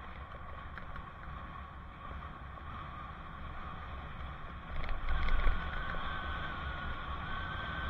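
Wind rushing over a helmet camera's microphone and road noise while riding a bicycle, a steady low rumble. It swells louder for about half a second about five seconds in, and a faint steady high whine follows.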